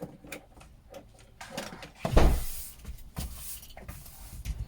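Things being handled and moved around: scattered knocks and clicks, with a loud scraping rustle about two seconds in and another scrape a second later.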